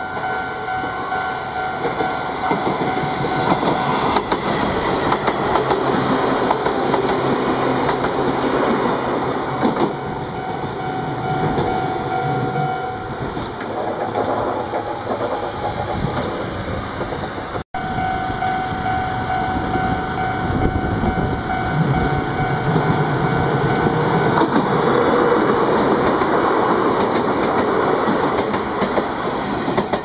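Izuhakone Railway Sundu Line electric commuter train running along the track, wheels clacking over the rail joints. It grows loudest as the train passes close by near the end.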